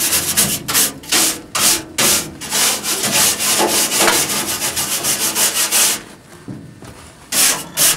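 Steel wire brush scrubbing a steam locomotive's perforated metal spark arrester screen in the smoke box, in a quick run of back-and-forth strokes, to clear soot that has clogged the screen. The scrubbing stops about six seconds in, and one more stroke comes near the end.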